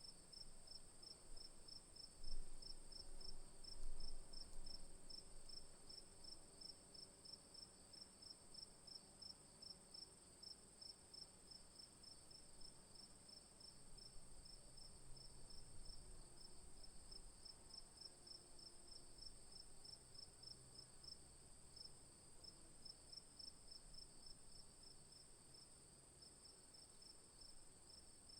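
Faint crickets chirping: a steady high trill with a second insect pulsing in a quick, even rhythm of several chirps a second. Two soft low thumps come a few seconds in.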